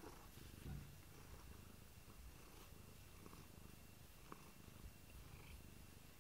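Domestic cat purring faintly and steadily, close to the microphone: a low, even rumble.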